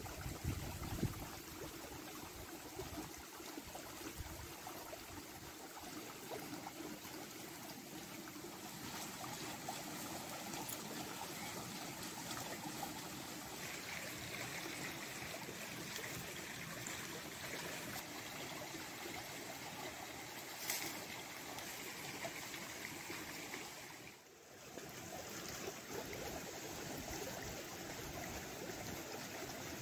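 A stream running steadily, with a brief drop in level about three-quarters of the way through.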